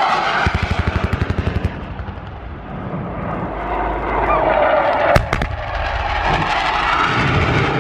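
A rapid string of pyrotechnic charges detonating in quick succession, about ten bangs a second for just over a second. A single sharp bang follows about five seconds in, over a steady drone.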